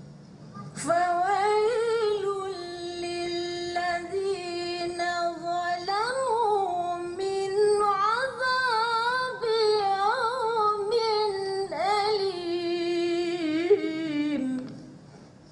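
A woman reciting the Quran in the melodic competition style (tilawah): one long phrase that starts about a second in, holds a steady note, then winds through ornamented rises and falls before fading out near the end.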